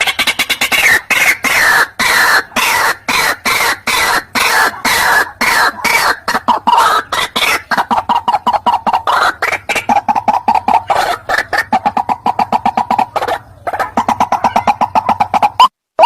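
White-breasted waterhen (ruak-ruak) calls played as a hunting lure: a loud, fast, unbroken run of repeated croaking notes, about five or six a second. Just before the end the recording cuts to a cleaner series of separate sharp notes with gaps between them.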